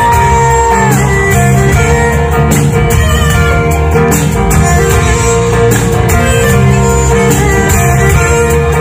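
Live band playing an instrumental passage on guitars, bass and drums, loud and heard through the hall. A long held high note ends about a second in.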